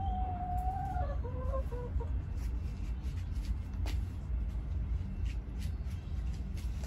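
A chicken calling: one drawn-out note for about a second, then a few short falling clucks. A steady low rumble and scattered light ticks run underneath.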